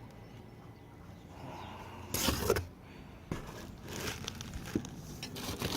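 Packaging being handled: rustling and scraping, with a loud burst about two seconds in, then a run of short clicks and crinkles.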